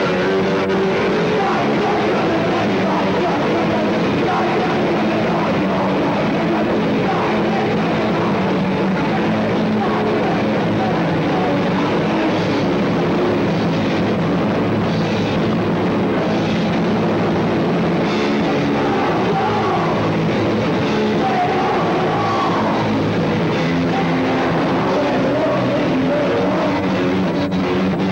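Punk band playing live: electric guitar and drum kit with a singer's vocals, loud and unbroken.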